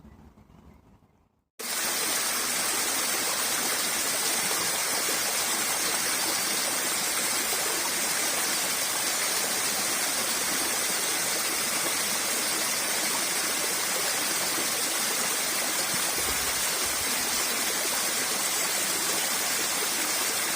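Rushing water of a waterfall, a steady, loud rush that starts abruptly about a second and a half in.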